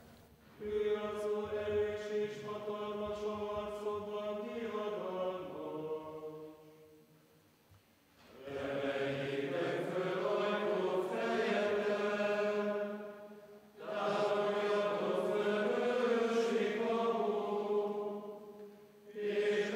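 Benedictine monastic community singing a psalm in unison chant, in three long phrases with short pauses between them.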